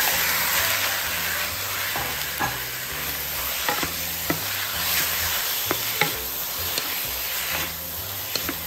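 Marinated pork pieces sizzling in hot oil as they are stir-fried in a stone-coated wok, the sizzle loudest at first and easing a little. A wooden spatula scrapes and knocks against the pan now and then.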